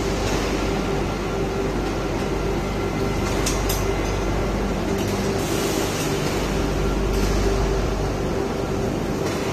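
Steady hum and rush of running machinery, unchanging throughout, with a couple of faint clicks about three and a half seconds in.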